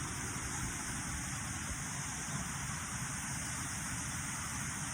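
A waterfall's steady, even rushing noise, unchanging throughout.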